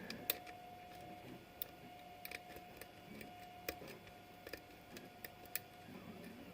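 Pin tumbler lock being single-pin picked with a hook pick under a tension wrench: scattered faint clicks and taps, about ten in all, as the pick lifts and sets the pins, over a faint steady whine.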